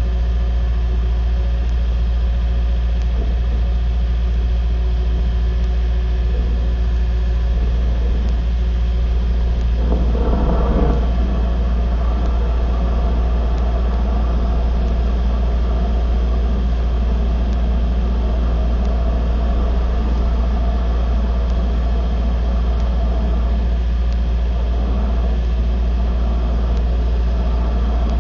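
Steady low engine hum with even tones, with a brief louder rush about ten seconds in.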